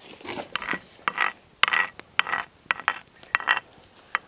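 Repeated rasping, scraping strokes, about two a second, with small clicks between them.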